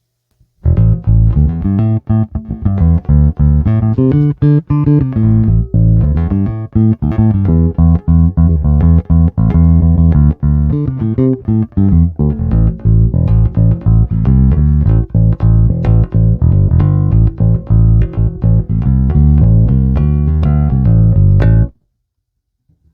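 Electric bass played through a Traynor YBA300 all-tube bass amp head, heard straight from the amp's DI output with no cabinet mic. The playing is a clean, continuous bass line that starts about a second in and stops abruptly a second before the end.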